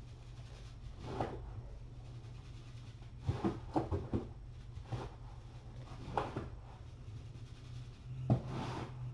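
Scattered knocks and clunks of things being handled, like a cupboard or drawer being opened and closed: one about a second in, a quick cluster about three to four seconds in, single ones around five and six seconds, and the loudest near the end, over a low steady hum.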